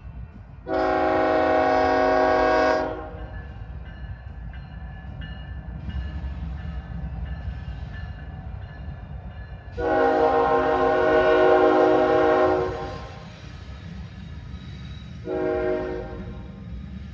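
Air horn of a Union Pacific GE C45AH (ES44AH) GEVO locomotive sounding over the low rumble of the passing freight train: two long blasts and a short one, the start of the grade-crossing signal.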